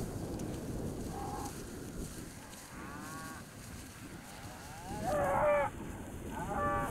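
Cattle mooing, several drawn-out calls that bend in pitch, the loudest about five seconds in, over wind rumbling on the microphone.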